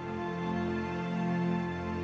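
Slow background music of long held chords, the notes shifting gently.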